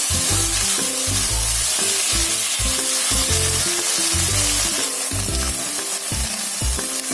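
Chicken strips and tomato paste frying in olive oil in a non-stick wok: a steady sizzle as they are stirred. Background music with short, stepping bass notes plays underneath.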